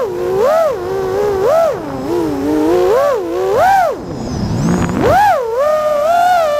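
Brushless motors of a 5-inch FPV quadcopter (Ethix Silk V4 2306 2345KV) whining, the pitch swooping up and down with throttle. About four seconds in the whine drops away briefly under a low rush of wind, then climbs again.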